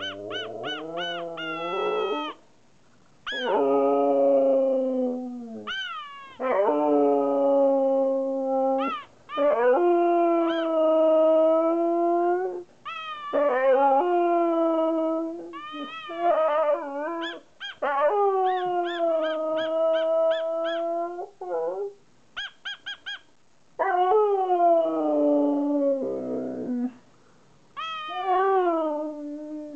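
A husky howling and "talking": a string of long, wavering howls that rise and fall in pitch, each a second or two long, separated by short pauses. A few quick, clipped yips come about two-thirds of the way through.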